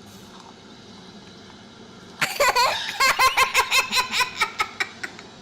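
A young child bursts into laughter about two seconds in, then goes on in a quick run of short ha-ha pulses, about five a second, that tail off near the end.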